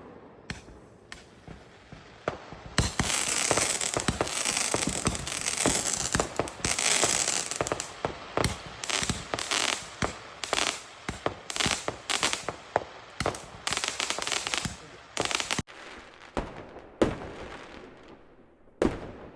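Fireworks going off: from about three seconds in, a dense run of rapid crackling pops and bangs. About two-thirds of the way through it thins to scattered louder bangs that fade away.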